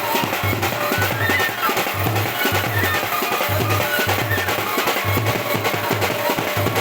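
Loud music played over a DJ sound system, with a heavy repeating bass beat and drums under a melody.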